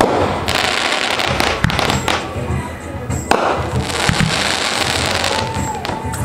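Consumer aerial fireworks going off: a string of sharp bangs and crackling breaks, with the loudest bursts near the start, at about a second and a half, and between three and four seconds in.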